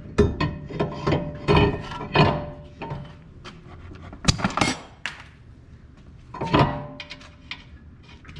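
Metal clanks and clinks of brake rotors being handled: a rotor set down and a new rear rotor fitted onto the wheel hub. There are about eight separate knocks, a few of which leave a brief ringing tone.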